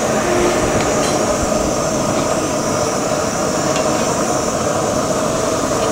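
Steady noise of a grill at work, with steaks sizzling on a ribbed grill pan, and a few light clinks of metal tongs against the pan.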